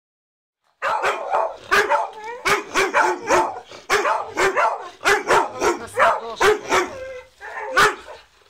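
Dogs barking over and over in quick succession, about two barks a second, starting about a second in.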